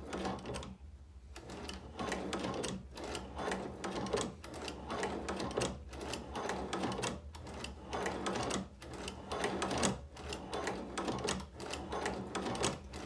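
Hand-cranked Chinese leather patcher (cobbler's shoe-patcher) sewing machine stitching through leather: its needle and linkage clatter in a run of clicks and knocks as the wheel is turned, with a short pause every second or so.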